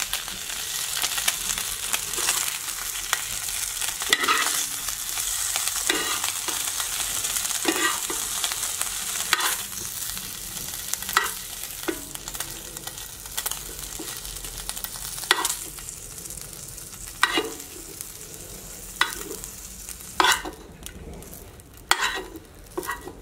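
Sliced smoked turkey sausage sizzling in a hot cast-iron skillet while a metal spoon scoops it out, scraping and clinking against the pan every second or two. The sizzle fades toward the end as the pan empties.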